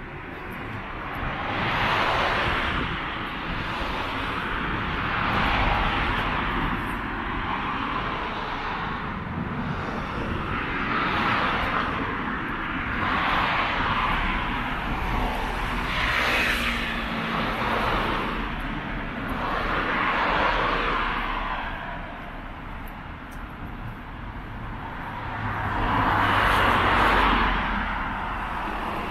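Road traffic, with cars passing one after another. Each passing car brings a swell of tyre and engine noise, about seven in all, over a steady low rumble.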